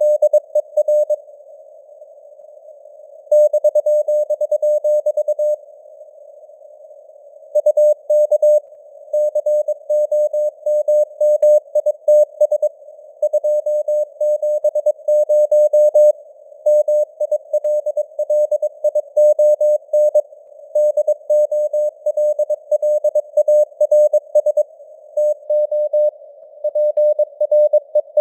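Computer-generated Morse code (CW) at 22 words per minute: a single tone of about 600 Hz keyed on and off in dots and dashes, over a narrow band of simulated radio hiss around the tone. There are two pauses of about two seconds near the start, where only the hiss is heard.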